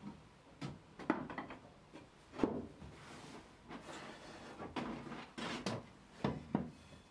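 Wooden offcuts knocking and clattering against each other as strips are pulled out of a lumber rack and handled, with wood sliding and rubbing on wood in between. There are about eight sharp knocks spread through the clip.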